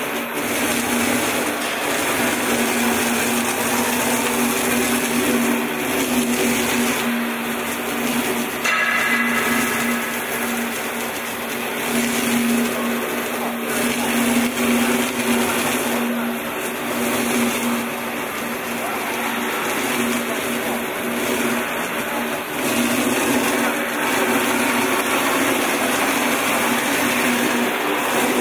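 CNC router spindle running and cutting into a foam block with a long bit: a steady whine over a rushing hiss, swelling and easing as the cutter moves through the block.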